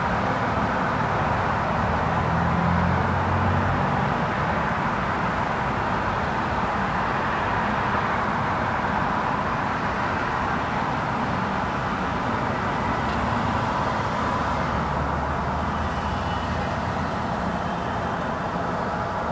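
Light road traffic: a steady wash of tyre and engine noise from passing cars, with a low engine rumble swelling a couple of seconds in and again near the end.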